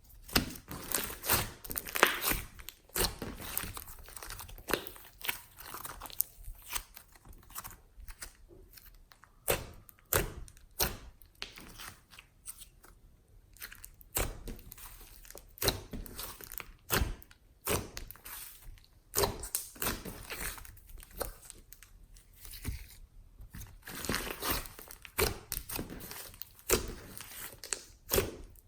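Glossy slime being kneaded and mixed with soft clay by hand, giving irregular sticky crackles, clicks and pops.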